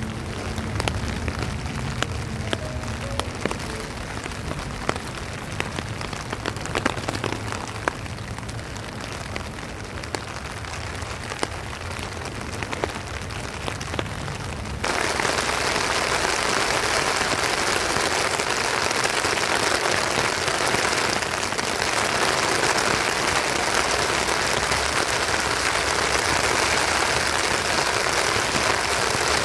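Rain falling on a tent's fabric roof, heard from inside the tent. For the first half it is separate drops ticking on the fly over a low rumble; about halfway it switches abruptly to a denser, steady hiss of heavier rain.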